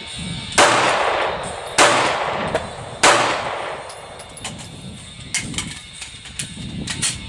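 Three gunshots about a second and a quarter apart, each with an echoing tail, then a quick series of lighter metallic clicks and clacks from a magazine change (the empty magazine dropped and a fresh one seated) before firing resumes.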